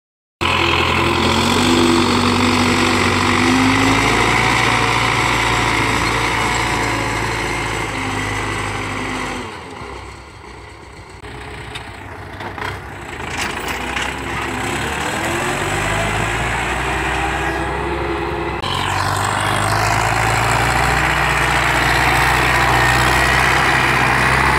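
MTZ-82 tractor's four-cylinder diesel engine running steadily under load while pulling a cultivator through the soil, dropping quieter for a couple of seconds about ten seconds in.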